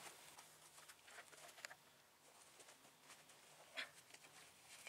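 Near silence, with a few faint clicks and taps, the clearest about a second and a half in and again near four seconds.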